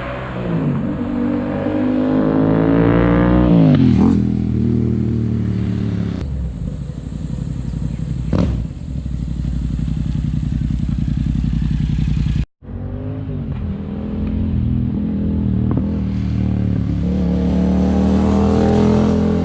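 Yamaha MT-07 parallel-twin engine through an Akrapovic carbon exhaust, revving: the pitch climbs for about four seconds and falls back, runs steadily, then climbs slowly again. The sound cuts out briefly about two-thirds of the way through.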